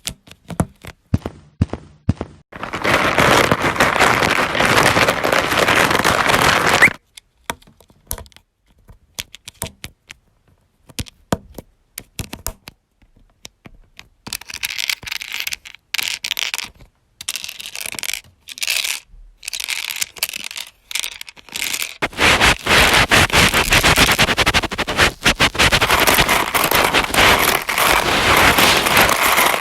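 Lego bricks rattled, scraped and clicked together as homemade sound effects. Scattered sharp clicks alternate with long stretches of dense scraping, crackling noise: one from about three to seven seconds in, and a longer one starting about two-thirds of the way through.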